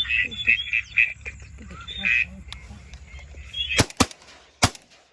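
Ducks giving rapid nasal quacking calls, then three shotgun shots in quick succession near the end, the last about half a second after the first two.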